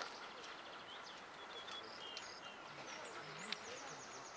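Outdoor ambience with small birds chirping repeatedly in short high calls, and a rapid ticking trill near the end, over a faint steady background.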